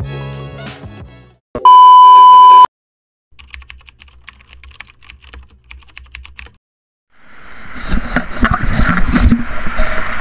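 Intro music fading out, then a loud steady electronic beep of about a second. This is followed by a rapid typewriter-style ticking sound effect that runs for about three seconds while a caption types on. Near the end, a loud rushing noise with a low rumble and scattered knocks fades in.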